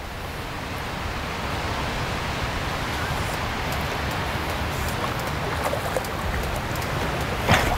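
A steady rushing hiss, then near the end a sharp splash as a carp is scooped into a landing net.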